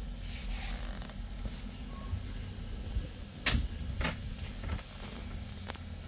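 A few sharp clicks and a brief rattle about three and a half and four seconds in, with a smaller click near the end, over a steady low hum.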